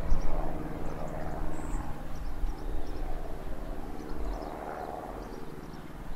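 Distant Class 66 diesel locomotive, its EMD two-stroke V12 running as a steady low drone with several even tones, hauling a train of loaded hopper wagons.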